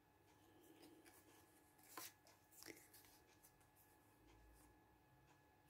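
Near silence, with faint taps and rustles of paper being handled and pressed onto a journal page; two slightly plainer taps come about two seconds in and a little before three seconds in.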